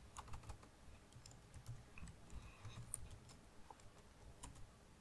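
Faint keystrokes on a computer keyboard, typed in short, irregular runs.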